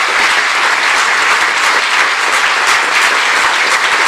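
Audience applauding steadily, a dense spread of hand claps welcoming a singer to the stage.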